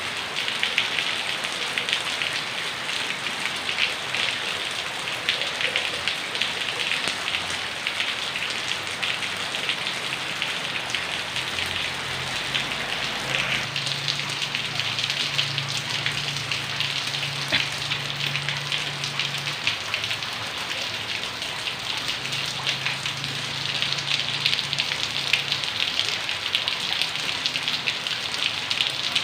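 Heavy rain pouring steadily, a dense patter of drops on surfaces. A faint low hum joins in about halfway through.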